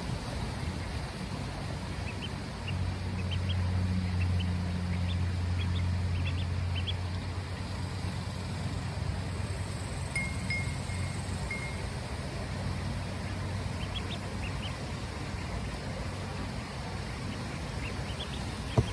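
Ducklings peeping in short, high, rising chirps, in clusters a few seconds in and again later, over a low steady drone that swells for several seconds and fades. A single sharp tap near the end.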